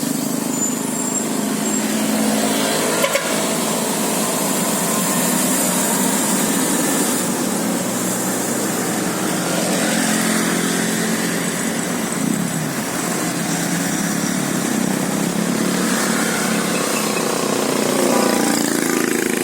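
Road vehicle engines running steadily amid street traffic noise, with a short knock about three seconds in.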